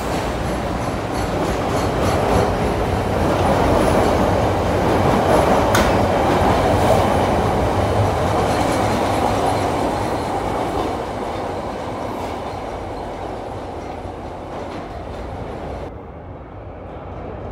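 CTA Blue Line subway train pulling out of an underground station and running past along the platform, its wheels clattering on the rails. It is loudest in the middle and fades as it goes into the tunnel. Near the end a quieter steady rumble remains.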